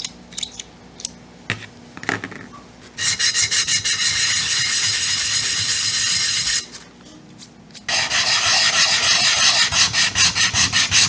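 Rapid back-and-forth scrubbing by hand with an abrasive on an outboard's metal anode mounting plate, cleaning the bonding surface so the anode makes good electrical contact. A few light clicks come first, then about three and a half seconds of quick strokes, a pause of just over a second, and the strokes start again.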